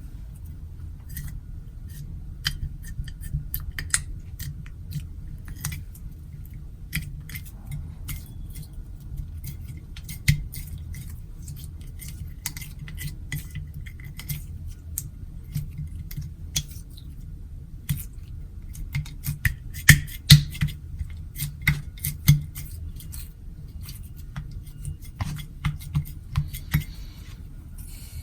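Clear slime being kneaded and stretched by hand, giving many small irregular clicks and pops, with a run of louder pops about twenty seconds in, over a steady low hum.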